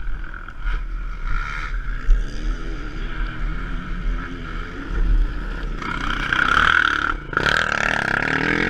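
Motocross bike engine running, growing louder and fuller about seven seconds in after a brief dip.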